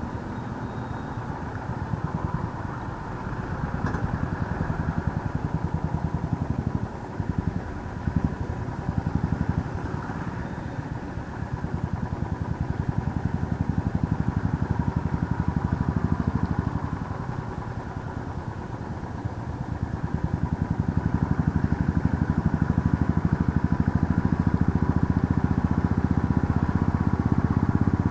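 Motorcycle engine running while being ridden, its loudness rising and falling with the throttle, then steadier and louder for the last several seconds.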